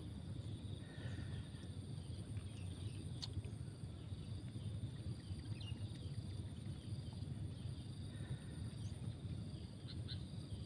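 Faint outdoor lakeside ambience: a low rumble of wind noise, a steady high insect drone, and a few short faint chirps.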